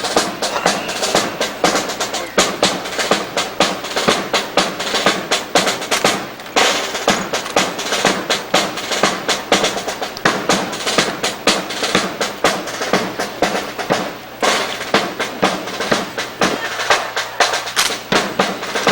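Fast, dense run of crisp clacks and slaps from rifles being spun, slapped and caught in a ceremonial fancy drill, rattling like a snare-drum roll.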